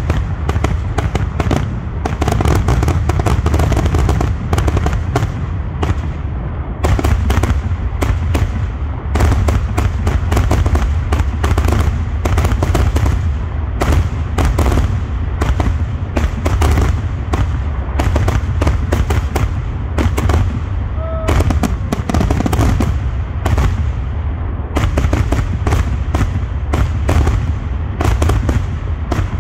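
Loud fireworks finale: aerial shells bursting in rapid, near-continuous succession, with many booms and crackles overlapping over a constant low rumble.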